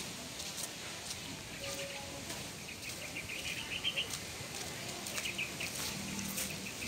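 Small birds chirping on and off, with a short run of quick chirps about three and a half seconds in, and scattered light clicks or taps.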